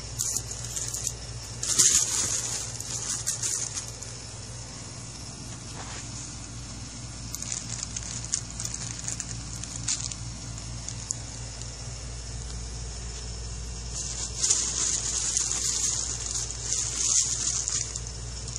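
Crinkly nylon cat tunnel rustling and scraping, in bursts about two seconds in, again around the middle, and longer near the end, as the fabric is scratched from outside and the cat scrambles inside.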